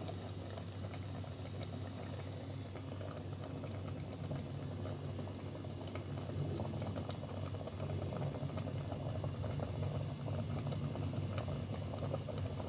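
Pot of fish stew in tomato broth boiling: a steady bubbling with fine crackles, growing a little louder about halfway through.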